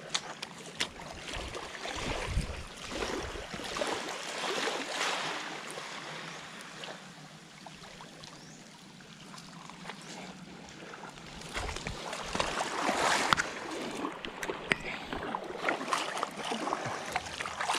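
Small waves lapping and washing against a gravelly, shell-strewn shoreline. The wash is irregular, swelling about two to five seconds in and again about twelve to fourteen seconds in, with scattered sharp clicks.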